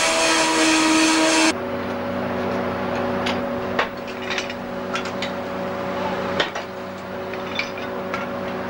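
Cast-iron foundry noise: a loud steady hissing roar while molten iron is poured from a ladle, cutting off suddenly about a second and a half in. After the cut, a quieter steady machine hum with scattered clicks and knocks.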